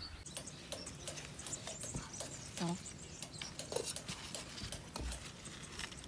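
Cucumber vines and leaves rustling and crackling as hands push through them on a wire trellis, with scattered small snaps and clicks. Two short voice-like sounds break in near the middle.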